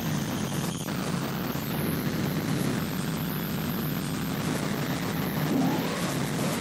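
Harsh noise: a dense, steady wall of distorted electronic noise, heaviest in the low-mids, with faint rising pitch sweeps near the end.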